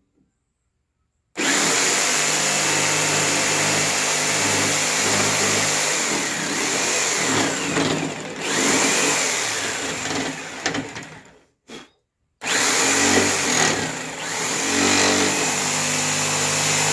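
Handheld electric saw cutting through a wooden board, its motor pitch shifting with the load. It cuts off briefly about eleven seconds in, then starts again.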